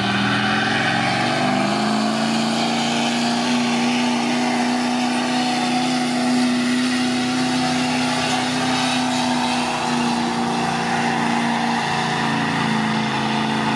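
Diesel pickup truck's engine held at high revs under full load while pulling the weighted sled, a steady loud drone. The pitch climbs slightly in the first couple of seconds and dips briefly a few seconds before the end.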